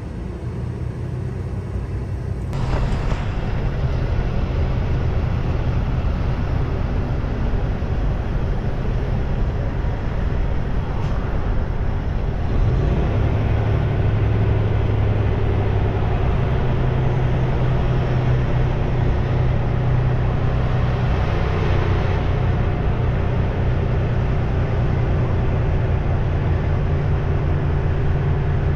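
Semi truck's diesel engine running with steady road rumble, heard from inside the cab while driving. It gets louder a couple of seconds in, and a low engine drone comes up more strongly about halfway through.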